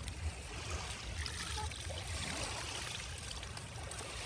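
Steady wash of shallow sea water at the shoreline, an even hiss of moving water with a low rumble under it.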